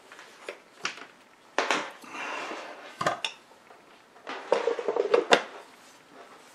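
Hands working on a small piece of test equipment: a string of sharp clicks and knocks with two short spells of light rattling clatter, the loudest click near the end.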